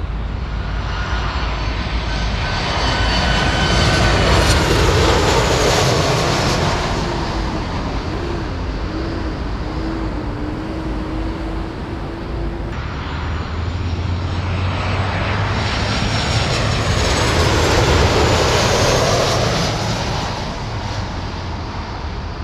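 Jet airliners on final approach passing low overhead, one after the other: each swells into a loud rush of engine noise and then fades. The first carries a faint whine that falls slightly in pitch, and the sound breaks off abruptly about halfway through before the second pass builds.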